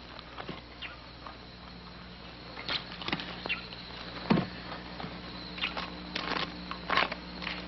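Bear cub clawing and tearing at a rotten log: scattered crackles, snaps and scratches of crumbling wood, the sharpest snaps about three, four and seven seconds in.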